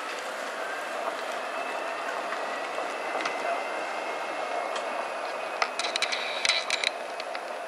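Golf cart driving along, its motor whining higher as it picks up speed and then running steadily over tyre and road noise. There is a burst of rattling clicks about six seconds in.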